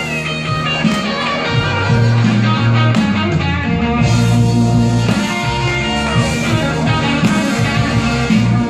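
Instrumental intro of a blues karaoke backing track, with electric guitar over bass and drums.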